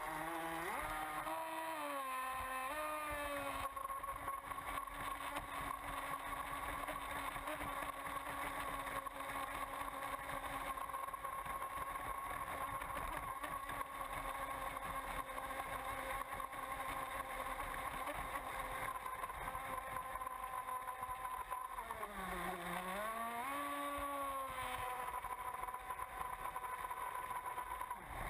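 Miss Geico RC racing catamaran's motor running at speed, heard from on board, with a steady high-pitched whine over rushing water and spray. The pitch wavers briefly at the start, then dips sharply and climbs back about three-quarters of the way through as the throttle is eased and opened again.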